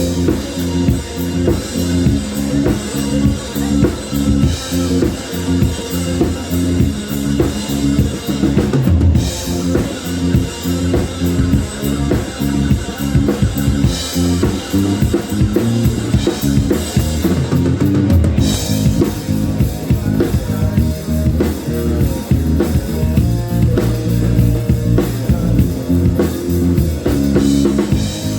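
Loud rock music played for a sound check: a full drum kit with heavy bass drum and snare over a bass line stepping between notes, with brief breaks about 9 and 18 seconds in.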